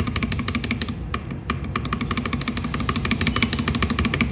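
Spacebar of a mechanical keyboard with a Fantasy Virus tactile switch (PC housing) pressed rapidly and repeatedly, giving a fast run of key clacks at about ten a second.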